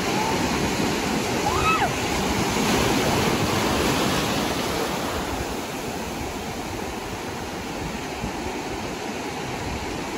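Sea surf breaking and washing through shallow water at the shoreline: a steady rushing hiss, louder in the first half and then easing off.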